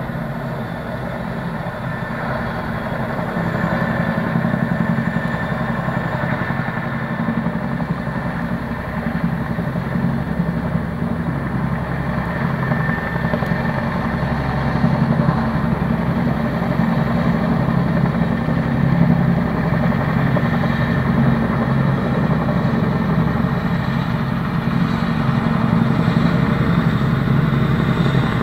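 RAF Chinook tandem-rotor helicopter flying low overhead, its rotors beating rapidly over the steady engine noise, growing a little louder about four seconds in.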